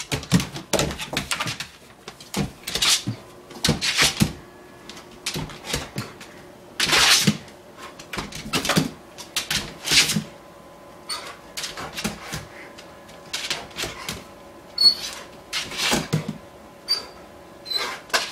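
A dog's claws clicking and scrabbling on a wooden floor and against a door as it jumps at a laser dot: irregular knocks, taps and scrapes. A few short high squeaks come near the end.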